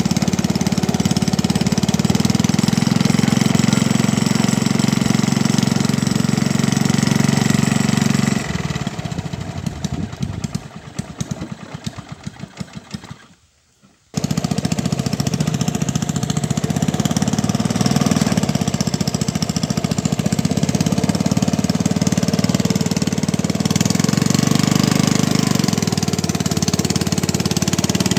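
Small engine running steadily with a pulsing, knocking beat. About eight seconds in it breaks into uneven pulses and dies away almost to nothing, then runs steadily again a few seconds later.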